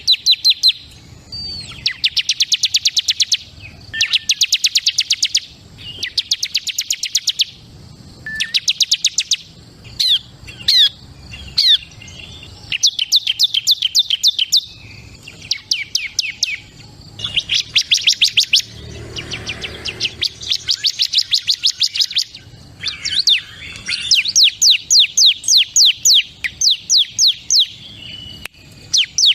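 Bar-winged prinia (ciblek) singing in rapid trills of sharp, high notes, about ten a second. Each run lasts one to two seconds with short pauses between, and one longer run comes near the end.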